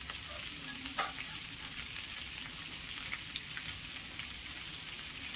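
Chopped vegetables sizzling in hot oil in a kadai, with a steady crackling hiss. A sharper tick comes about a second in.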